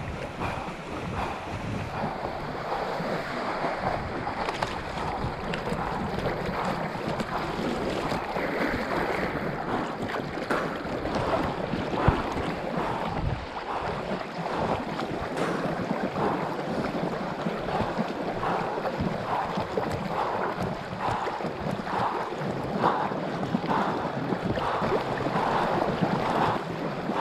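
River water sloshing and splashing right at the surface, with rhythmic splashes of swim fins kicking on a riverboard (hydrospeed), about one to two a second, clearest in the second half.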